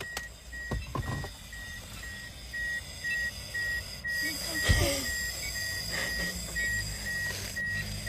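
Intoxalock ignition interlock breathalyzer beeping, a short high beep repeated evenly about two to three times a second, while a breath sample is blown into it for the test that must be passed before the car will start. A single thump about halfway through.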